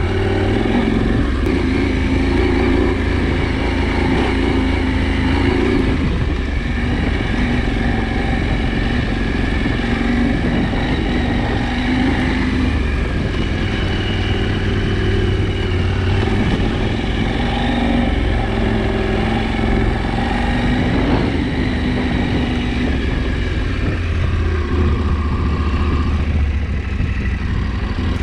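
KTM 790 Adventure's parallel-twin engine running as the motorcycle is ridden, its revs rising and falling.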